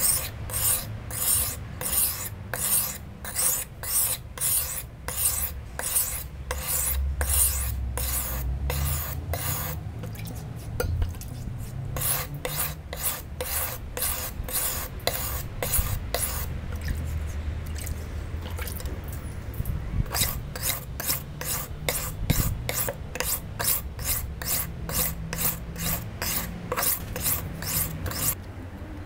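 Kitchen knife blade stroked back and forth across a cheap, water-wetted sharpening stone: a rhythmic rasping scrape at about two strokes a second, with a short pause about ten seconds in.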